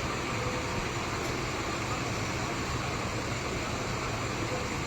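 Heavy construction machine's engine running steadily, a constant low hum under an even noise.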